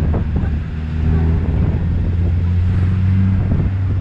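Quad bike (ATV) engine running steadily under way, its low drone shifting slightly in pitch, with a few short knocks just after the start.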